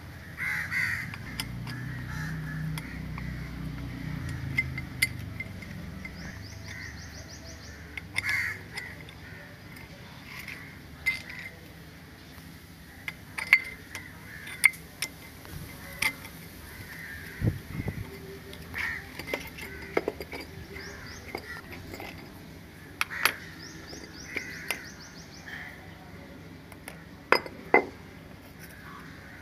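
Sharp metal clinks and taps at irregular intervals as a steel tool works at the aluminium cylinder head cover of a two-cylinder Yamaha outboard powerhead and the cover and its gasket come off. Crows caw in the background.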